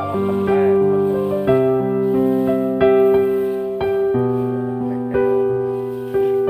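Background piano music: slow, held chords, with a new chord struck roughly every second.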